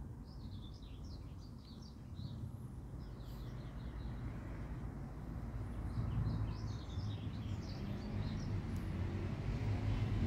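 Small birds chirping in two bouts of quick short calls, over a low rumble of road traffic that grows louder toward the end.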